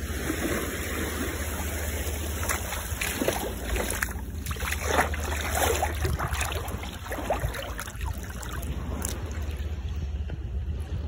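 Shallow seawater splashing and sloshing around legs wading in from the shore, the splashes thickest in the middle, over a steady wind rumble on the microphone.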